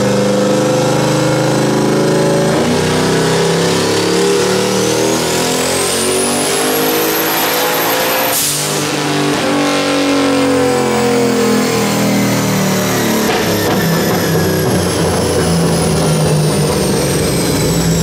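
Turbocharged 5.3 V8 with an S475 turbo under hard throttle, the turbo's whistle rising steadily for several seconds. About eight seconds in the throttle closes with a sharp burst of released boost. The engine then winds down while a high turbo whine slowly falls away.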